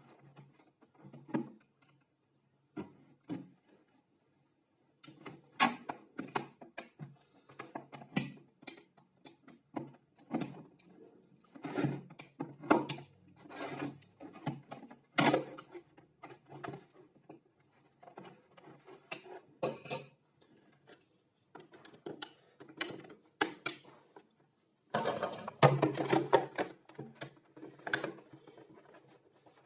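Irregular clicks, knocks and light scraping of parts and tools being handled at a workbench, with a denser stretch of scraping and rattling near the end.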